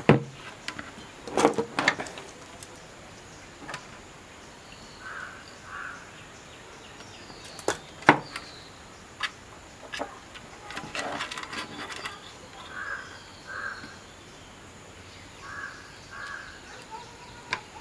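Scattered clicks and knocks of tools and wire being handled while a wire is soldered to the pin of an LED bulb unit. A crow caws in pairs three times in the background.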